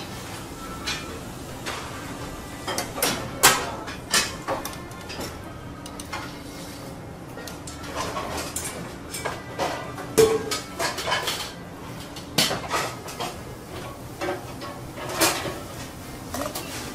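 Kitchen clatter of metal utensils: tongs, wire racks and trays clinking and knocking at irregular intervals over a low steady hum.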